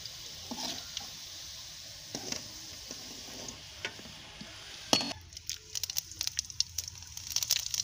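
Hot oil sizzling steadily in a steel karahi as fried potato cubes are lifted out with a slotted spoon, with a few light taps of the spoon. About five seconds in comes a sharp knock, then rapid crackling and popping that grows busier: cumin seeds spluttering in the hot oil.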